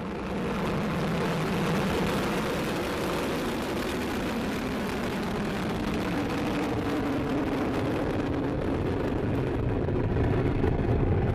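Vega rocket's P80 solid-fuel first-stage motor just after liftoff: a steady, dense roar of rocket exhaust with a deep rumble underneath, swelling slightly near the end.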